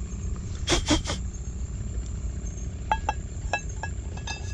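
Metal cookware being handled with a clip-on pot-gripper handle: a quick run of clinks and scrapes about a second in, then several light metallic taps that ring briefly, over a steady low background hum.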